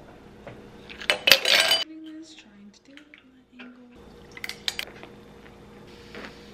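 Ice clinking into a stemmed wine glass with a ringing clatter about a second in, then sparkling soda poured from a can over the ice, with scattered small clicks and fizzing.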